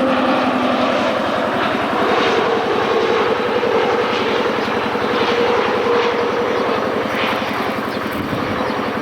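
Jet airliner engines heard close by as the plane passes on its landing approach: a loud, steady rushing noise with a low hum, easing off slightly near the end.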